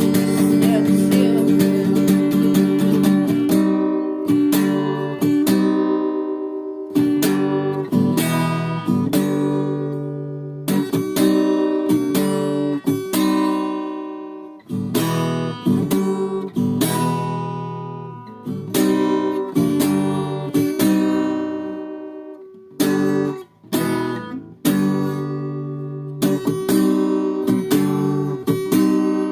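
Guitar music: chords strummed one after another, each ringing out and fading before the next, with a few brief gaps, in an instrumental passage without singing.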